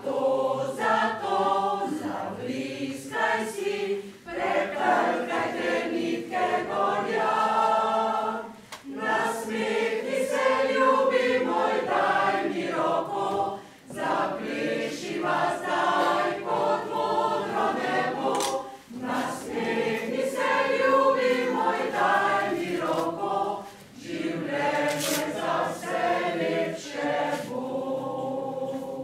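Mixed choir of men and women singing unaccompanied, in phrases of about four to five seconds with short breaths between, the song stopping right at the end.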